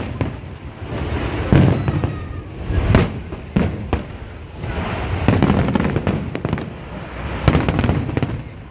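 Aerial firework shells bursting in a big display: a series of loud bangs a second or two apart, with a low rumble between them.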